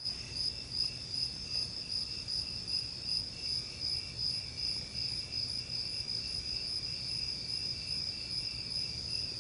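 Crickets chirping: a steady high trill that swells and fades about twice a second.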